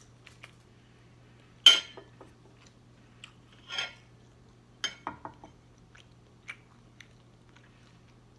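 Eating at the table: a fork clinking and tapping on a plate, with scattered clicks from chewing. The loudest clink comes a little under two seconds in, and a quick cluster of clicks follows about five seconds in.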